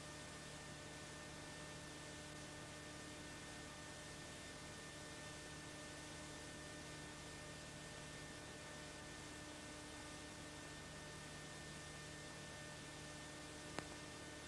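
Steady electrical hum over an even hiss, with one faint click shortly before the end.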